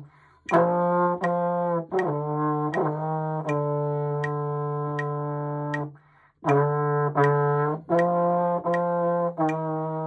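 Slide trombone played by a learner: several notes changing pitch, a long held note, a break about six seconds in, then more sustained notes. A steady metronome click keeps time about once every three-quarters of a second.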